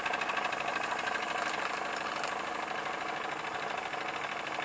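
Electrically heated toy steam engine running steadily with a fast, even beat, turning a line shaft and its belt-driven models.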